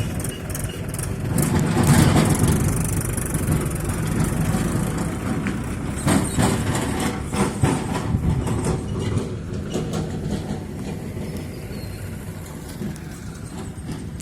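Bulldozer's diesel engine running, with knocks and clatter about two seconds in and again in the middle, easing off near the end.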